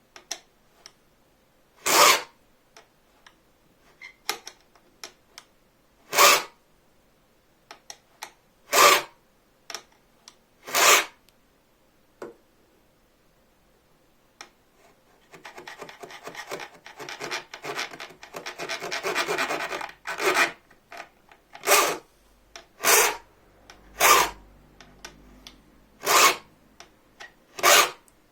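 A file cutting teeth into a bow-saw blade: single rasping strokes about every two seconds, with a stretch of rapid back-and-forth strokes in the middle lasting about five seconds.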